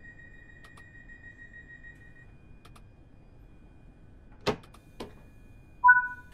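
Class 314 electric train's door equipment: a steady high tone stops about two seconds in, two sharp clicks follow, then a short, loud two-note beep sounds near the end as the doors are about to close.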